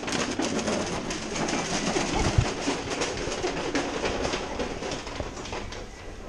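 Plastic shopping trolley rattling and clattering as it is pushed fast over a tiled supermarket floor, its wheels and basket clicking continuously.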